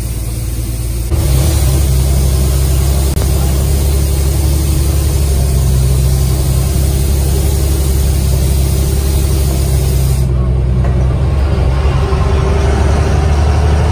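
Bus engine running steadily under way, with road noise; the sound gets abruptly louder about a second in.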